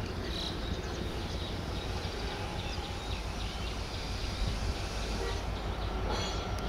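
Progress Rail MDGT42ACL diesel locomotive and its train approaching with a steady low engine rumble and track noise. About six seconds in, a high wheel squeal starts as the wheels run through the curve.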